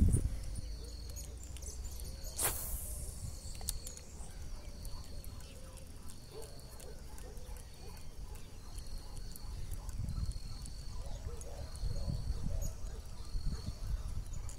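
Outdoor pond-bank ambience: insects chirping steadily in a high, evenly repeating pattern over a low rumble, with one sharp click about two and a half seconds in.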